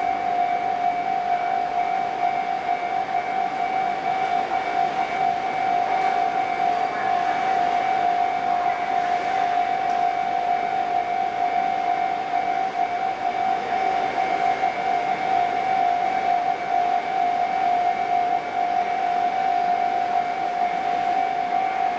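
Level crossing warning alarm sounding continuously as one steady high tone, over the running noise of a freight train on the rails.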